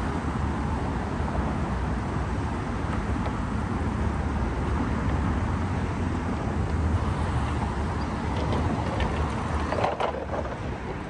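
Steady motor-traffic noise from cars on the bridge roadway, a continuous low rumble and hiss, with a short clatter about ten seconds in.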